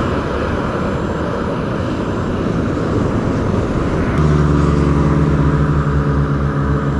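A steady rushing noise. About four seconds in, a motorcycle engine cuts in sharply and idles steadily with an even hum.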